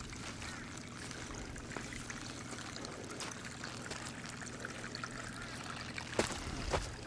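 Muddy water trickling in wheel ruts over a steady low hum, with two sharp knocks about half a second apart near the end.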